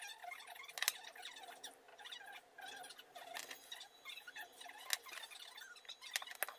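Faint scratching and rustling of plastic-coated wire being bent and fitted by hand around a cork, with a few sharp clicks from the wire and small pliers.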